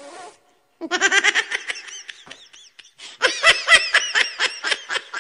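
Laughing ringtone: rapid, high-pitched laughter in quick pulses of several a second, easing off briefly around the middle and starting again louder.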